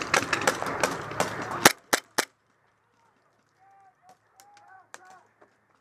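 Airsoft guns firing: a quick string of sharp shots over a noisy background, ending with three louder separate cracks about two seconds in. After that come only a few faint distant shots and calls.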